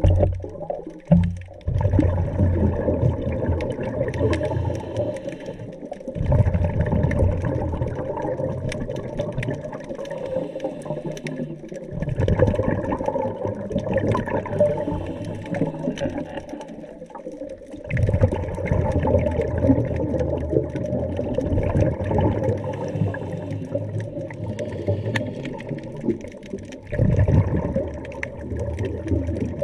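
Scuba diver breathing through a regulator underwater: long surges of exhaled bubbles, one starting about every six seconds, with quieter gaps for each inhalation between them.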